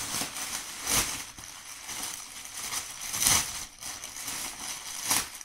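Plastic packaging rustling and crinkling as it is handled, with louder crackles about a second in, a little after three seconds, and just before the end.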